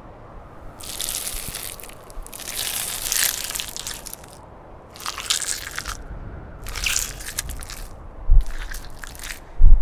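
Wet crunching and squishing sound effects in five separate bursts, some short and one about two seconds long. Near the end come two low thumps, the second the loudest sound.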